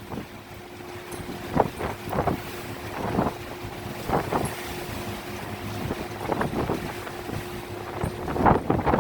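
Wind gusting and buffeting the microphone every second or two, over a steady hum of a boat's engine running in rough sea.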